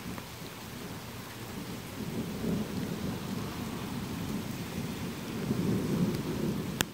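Thunder rolling in a low rumble that swells from about two seconds in and is strongest near the end, over a steady hiss of rain. A single sharp click just before the end.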